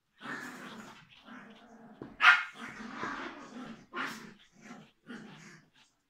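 Biewer Terrier puppy making a string of short vocal sounds while being brushed, with a loud, sharp one about two seconds in and another near four seconds.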